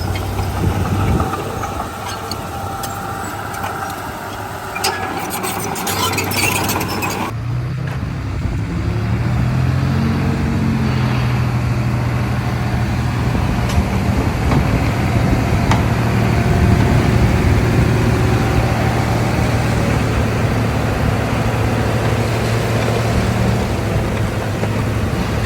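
Heavy diesel earthmoving machinery running, with a low steady engine hum and clanking in the first several seconds. About seven seconds in the sound changes abruptly to a smoother, steady engine note that rises briefly and then holds.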